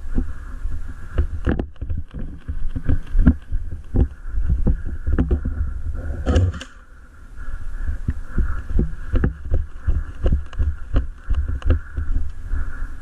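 Movement noise on the microphone: a low rumble with irregular thumps and many scattered clicks and knocks. A short pitched burst comes about six seconds in.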